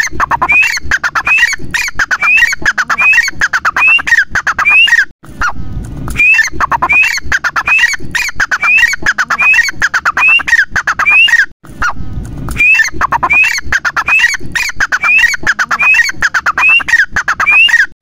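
Grey francolin (teetar) calling loudly in a fast, ringing run of repeated two-part notes, each a sharp rising whistle dropping into lower falling notes, about one and a half a second. The run pauses briefly twice.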